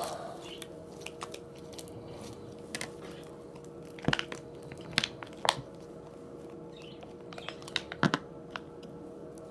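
Glue slime being kneaded and stretched by hand, giving sticky clicks and pops: a cluster about four to five and a half seconds in and another around eight seconds. A faint steady hum lies underneath.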